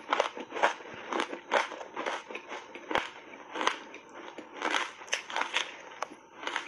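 Ice chunks coated in dry matcha powder being chewed: a run of irregular crunches, about one or two a second, with a sharp click about three seconds in.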